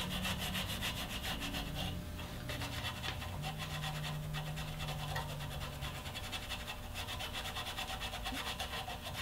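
Scotch-Brite abrasive pad rubbed back and forth over a carved wooden ear in quick, even strokes, scuffing down dried shellac sanding sealer to take off the raised nibs before staining.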